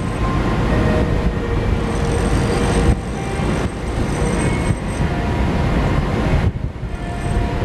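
Steady rumble of the ferry Tachibana-maru's engines and the churning of its propeller wash, heard from the open deck as the ship gets under way.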